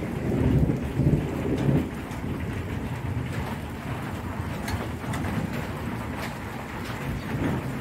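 Heavy rain falling, a steady hiss with scattered drop ticks, with a low rumble through the first two seconds.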